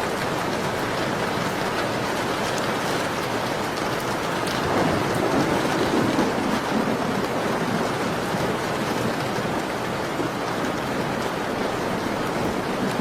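Steady falling rain with the faint crackle of a wood fire, swelling into a low rumble for a couple of seconds about five seconds in.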